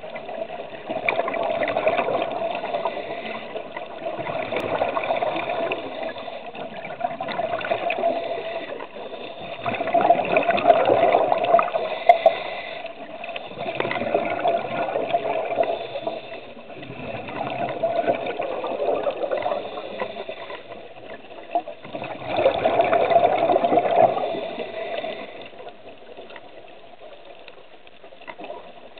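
Scuba regulator exhaust bubbling underwater with a diver's breathing, a burst of bubbles every few seconds. It dies down near the end.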